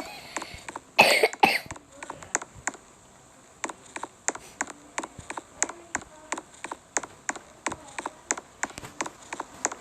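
Sharp clicks and light knocks of hand work on an air conditioner unit, coming irregularly at about two or three a second, with a short rough burst about a second in.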